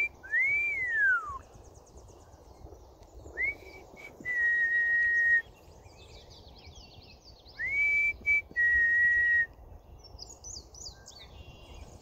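Loud, clear whistled notes: a long note that rises and then falls, followed twice by a quick upward slide into a held steady note about a second long. Faint songbird chirps and twitters sound behind them.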